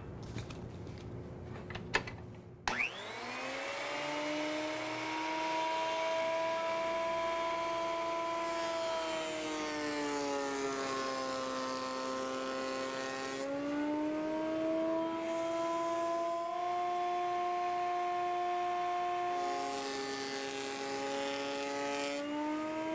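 Benchtop thickness planer switched on after a few knocks, its motor whining up to speed and then running steadily. Its pitch sags twice and recovers as the cutterhead bites into the board and planes its face.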